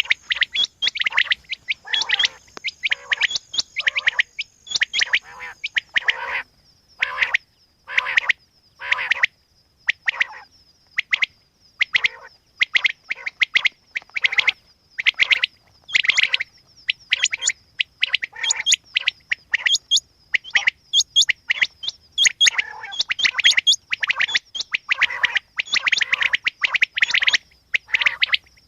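Quail calling over and over, short calls coming roughly once a second, at times in quick clusters, with a thin steady high-pitched whine underneath.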